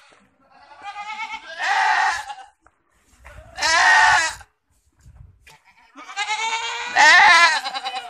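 Boer goats bleating: three long, wavering calls, one after another.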